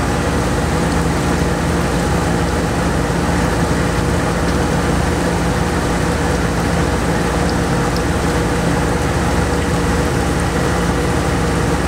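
The RV's engine idling steadily, with a stream of rusty water gushing out of a cooling-system hose and splashing below it. The engine is pushing rusty water out of its cooling system during a flush, a sign that the inside is being cleaned out.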